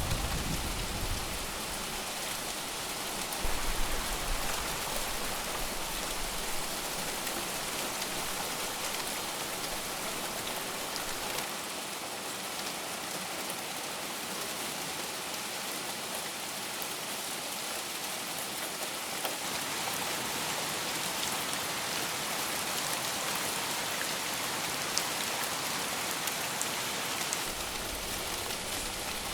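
Heavy monsoon rain falling steadily, an even hiss of countless drops. A brief low rumble comes in a few seconds in.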